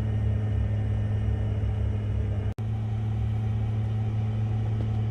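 Steady low rumble with a constant droning hum, like a vehicle or machine running. The sound drops out for an instant about two and a half seconds in.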